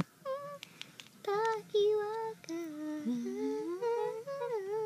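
A girl humming a tune in short held notes that slide up and down, with a couple of light clicks in the first second.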